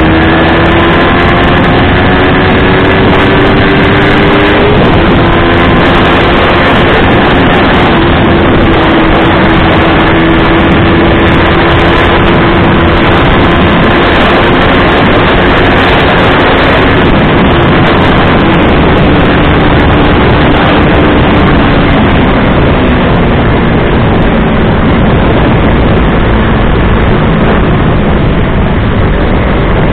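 Single-cylinder 150cc motorcycle engine ridden hard, its pitch climbing under acceleration, dropping sharply at an upshift about five seconds in, climbing and holding again, then falling away as the throttle eases in the second half. Loud wind rush on the microphone runs under it.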